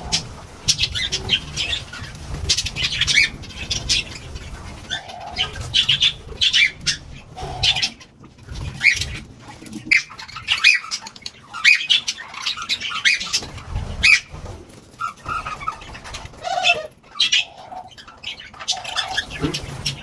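Birds chirping in many short, high calls throughout, with a few lower cooing notes mixed in, over a low background rumble.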